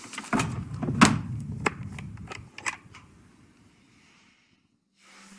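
Handling sounds: about five sharp clicks and knocks spread over some three seconds, then fading out.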